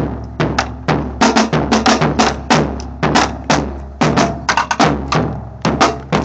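Drums played with sticks in a quick, uneven run of sharp strikes, with a steady low hum underneath.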